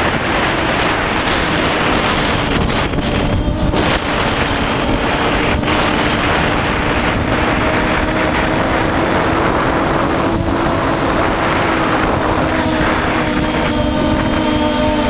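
DJI Phantom quadcopter's motors and propellers whining steadily, heard from on board under heavy wind buffeting on the microphone. Near the end the pitch lines shift and multiply as the drone changes its flight.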